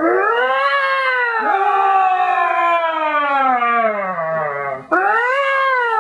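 Human voices doing long, drawn-out pretend lion roars, as loud as they can. Each is a wavering howl that rises and then slides down in pitch. It breaks off about five seconds in and starts again.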